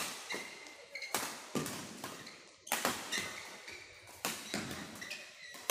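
Badminton rackets striking a shuttlecock in a fast doubles rally: a quick run of sharp smacks, each with a short echo off the hall.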